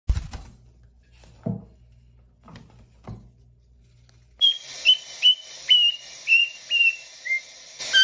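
Young parrot whistling a run of short, clear notes, about two a second, each swooping down at its start and then held, the last two pitched lower. Before the whistling, a few soft knocks over a low hum.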